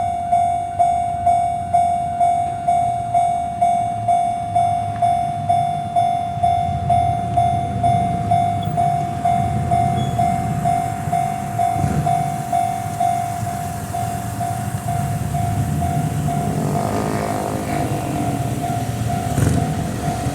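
Japanese railway level-crossing warning bell ringing with a steady electronic ding about twice a second, over the low rumble of an Ohmi Railway electric train that grows louder toward the end.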